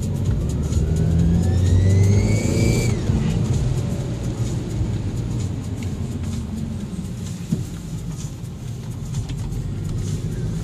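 Audi 1.8T turbo four-cylinder engine accelerating, with a loud turbocharger whine rising in pitch for about three seconds and then falling away sharply as the throttle closes. The engine then runs on more quietly, and the whine starts to rise again near the end. The whine is loud enough that the owner suspects a bad turbo, even though it still spools up to 1 bar.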